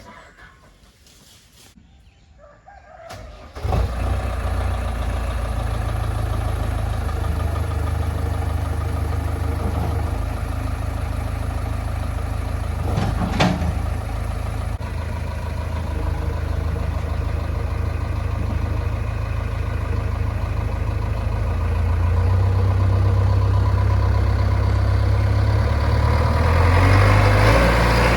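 Heavy diesel engine of an earthmoving machine running steadily. It comes in abruptly about four seconds in after a quiet start and works louder and harder near the end.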